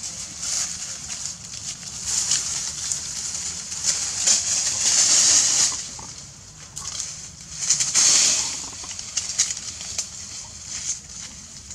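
Dry leaves rustling and crackling as macaques scramble and scuffle over the leaf litter, with many small crackles and two louder spells of rustling a few seconds apart.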